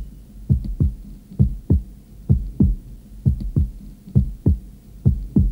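Heartbeat sound effect: deep double thumps, a lub-dub pair repeating a little more than once a second, over a faint low drone.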